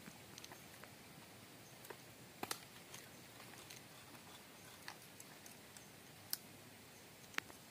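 Near silence, broken by several faint, sharp clicks and taps scattered through it.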